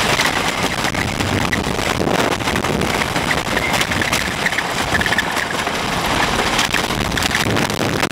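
Wooden roller coaster train running along its track at speed, a loud continuous rumble with rapid clattering from the wheels on the wooden track.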